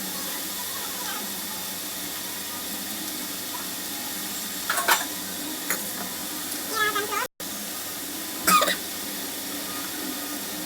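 Steady sizzle of vegetables frying in oil in a pan, with a few short sharper sounds near the middle and a brief cut-out about seven seconds in.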